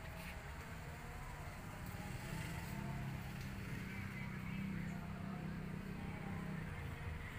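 Low, steady hum of a motor vehicle's engine running nearby. It swells from about two seconds in and eases off near the end.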